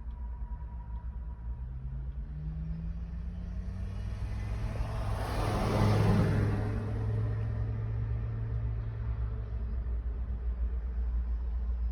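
A motor vehicle passing close by: its engine rises in pitch as it accelerates, then engine and tyre noise swell to a peak about halfway through and fade away, over a steady low rumble.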